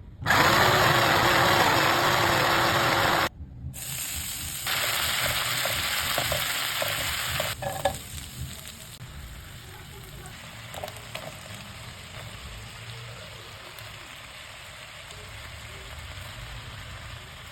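Capcay being stir-fried in a hot pan, oil sizzling. The sizzle is loudest for the first three seconds and cuts off abruptly, comes back, swells again for a few seconds, then dies down to a quieter, steady sizzle from about eight seconds in.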